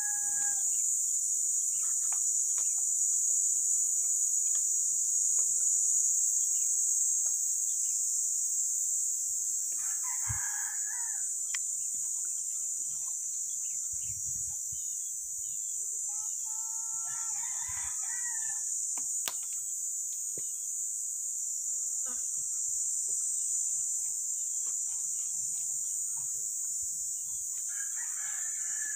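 A rooster crowing three times, several seconds apart, over a steady high-pitched drone of insects.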